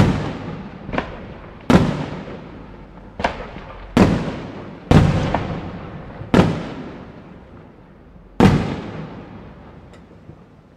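Aerial firework shells bursting: about eight sharp bangs at irregular intervals, each followed by a long echo that dies away. The last one comes about eight and a half seconds in, and the sound fades after it.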